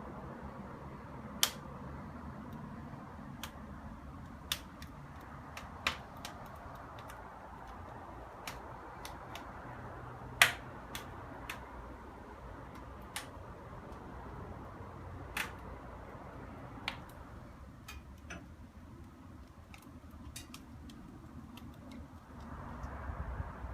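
Wood fire crackling in a newly lit fireplace: irregular sharp pops and snaps, the loudest about ten seconds in, over a low steady rumble.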